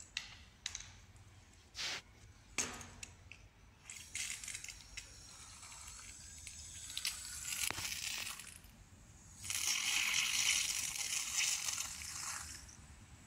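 Termiticide spraying under pressure from the brass fitting of an anti-termite pipe line, heard as a hissing spray. It comes in twice: a few seconds about four seconds in, then louder for about three seconds near the end. A few knocks and clicks of handling come before it.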